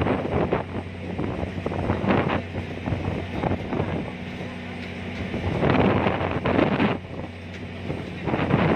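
Ferry's engine running with a steady low drone, while strong wind gusts buffet the microphone and rise and fall in rushes.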